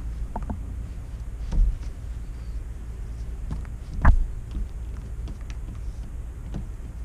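A steady low rumble with scattered light clicks and two short knocks, a dull one about one and a half seconds in and a louder, sharper one about four seconds in.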